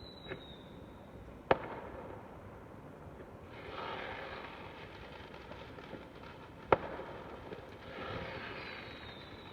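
Fireworks going off: two sharp bangs about five seconds apart, each followed a couple of seconds later by a spell of crackling. A faint falling whistle trails off at the very start.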